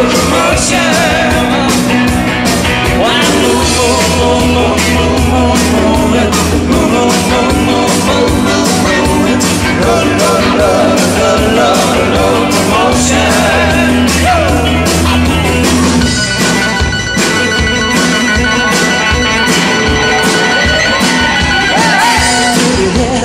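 Live rock band playing through a PA, heard from the audience: electric guitars, bass guitar and a steady drum beat. About two-thirds through, the low bass drops away and higher held chords take over.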